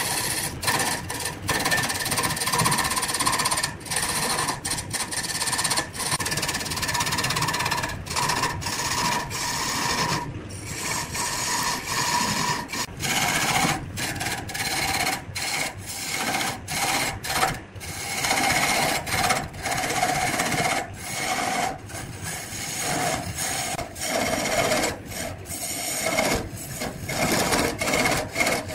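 Turning tool cutting into a large wooden blank spinning on a wood lathe: a steady scraping of shavings peeling off, broken by many brief gaps as the tool lifts and bites again. A faint tone under the scraping drops lower about halfway through.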